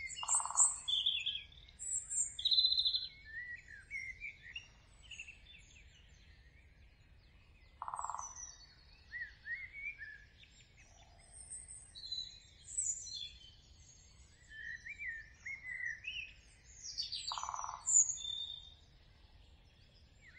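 Several birds singing and chirping, with overlapping short chirps, trills and warbles, and three short lower, noisier calls spaced about eight seconds apart.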